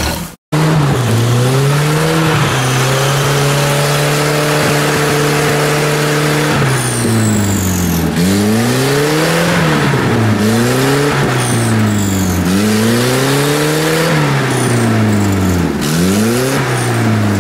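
UAZ off-roader's engine revving under load in a muddy, icy creek. It holds fairly steady revs for a few seconds, then is revved up and down again and again, about every two seconds.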